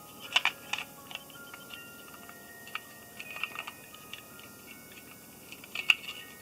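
Sharp clicks and taps of small hard parts being handled, loudest about half a second in and again near the end, over soft bell-like background music of short single notes.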